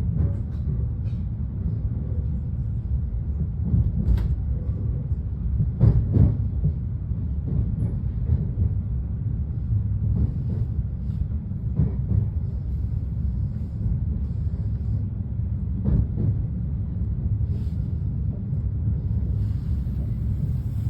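Steady low rumble of a 223 series train, heard from on board, with a few short knocks scattered through it, the loudest about six seconds in.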